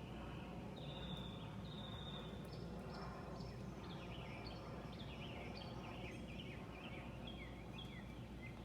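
Birds calling: two drawn-out whistles in the first few seconds, then many quick chirps and trills, over a steady low background rumble.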